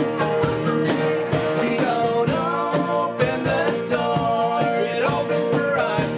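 Band playing live: a singer over acoustic-style guitars, with a cajon keeping a steady beat.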